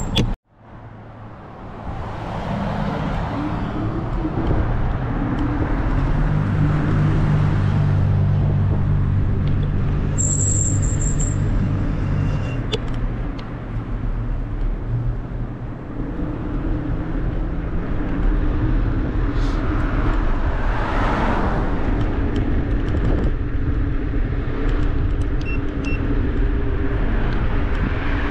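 City street traffic: motor vehicles running and passing, with a steady low engine rumble. The sound is strongest early on and swells again twice as vehicles go by.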